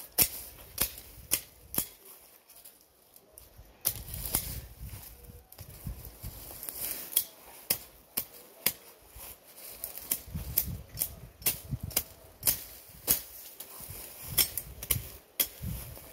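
Machete chopping at vines and weeds close to the ground: a run of sharp clicks, irregularly spaced at about one or two a second, with low rustling between strokes.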